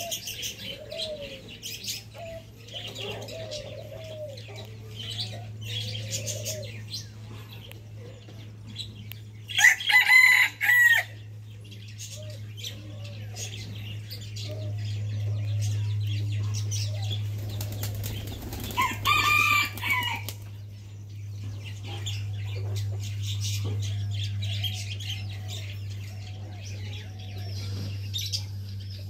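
Two loud rooster crows, one about ten seconds in and one about nineteen seconds in, each lasting about a second and a half. Between them, chickens cluck and small birds chirp over a steady low hum.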